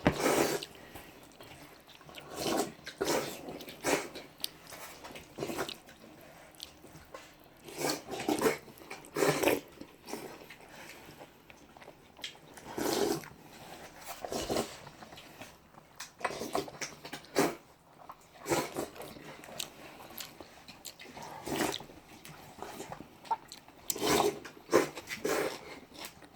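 A person eating jjajangmyeon noisily, with chewing and biting sounds in short, irregular bouts every second or two.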